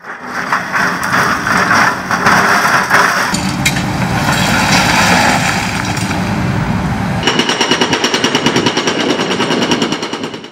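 A compact excavator working in concrete rubble, with clattering and crashing over the running machine. About seven seconds in, its hydraulic breaker hammer starts pounding fast and evenly, about ten blows a second.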